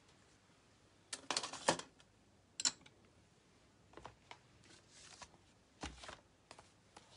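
Cardstock and craft tools being handled on a desk: a few paper rustles and sharp plastic clicks, then a heavier thud about six seconds in as a paper trimmer is set down.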